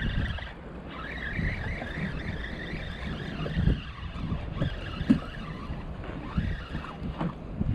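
Wind buffeting the microphone over choppy water, with scattered low knocks and bumps and a faint steady high hum.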